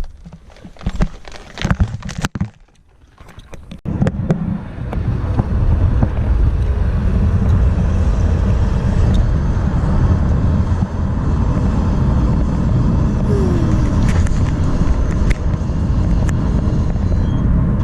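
A few clicks and knocks, then a steady low rumble of a car under way, heard from inside the cabin.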